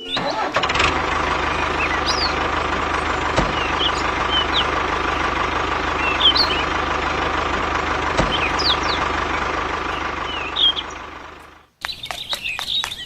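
DIY mini tractor's small motor running steadily, with birds chirping over it. The motor cuts off suddenly near the end.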